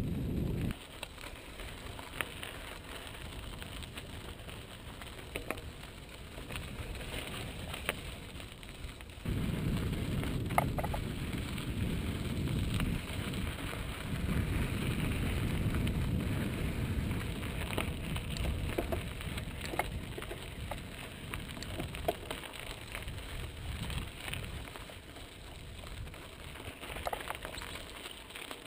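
Mountain bike tyres crunching and crackling over a dirt and gravel trail, with scattered clicks and rattles from the bike. A low wind rumble on the helmet-mounted GoPro's microphone grows stronger suddenly about nine seconds in.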